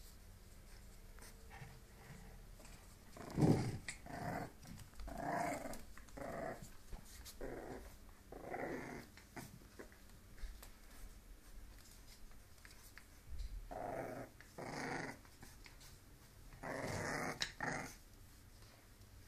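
English bulldog growling in repeated short, rough bursts while wrestling with a cat, about nine growls with a pause in the middle; the loudest come at the start and near the end.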